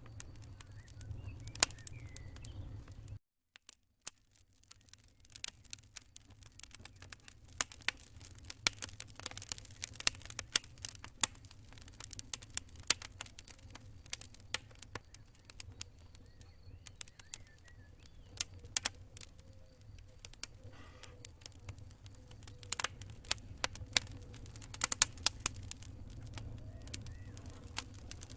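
Wood fire crackling in a fireplace: irregular sharp pops and snaps over a low steady rumble. The sound drops out briefly about three seconds in, then resumes.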